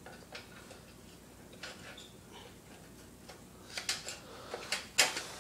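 Light scattered clicks and taps of plastic Xbox 360 casing parts being handled and fitted back together, with a few sharper clicks near the end.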